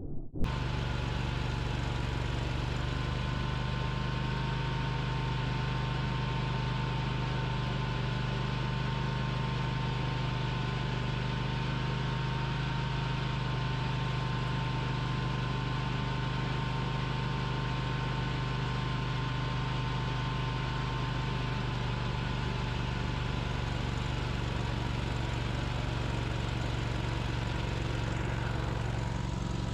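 Engine and front-mounted snowblower running steadily under load while throwing snow: a constant low drone with a steady whine on top. It cuts in abruptly just after the start.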